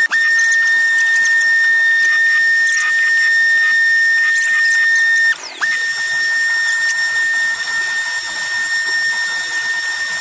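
An electric power tool running with a steady high-pitched motor whine. The pitch drops briefly and comes back up just after the start and again about halfway through, as the motor slows and picks up speed.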